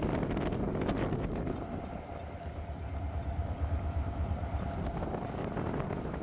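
Diesel-hauled freight train rolling through a grade crossing: a heavy low locomotive rumble that swells around the middle, over steady rail and wheel noise, with wind on the microphone.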